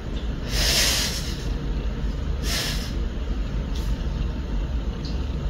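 Two short, hissy, forceful breaths while holding flexed poses, one about half a second in and a shorter one near the middle, over a steady low hum.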